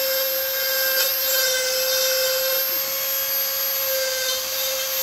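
Dremel flex-shaft rotary tool with a small bit grinding into wood, giving a steady whine at a fixed pitch.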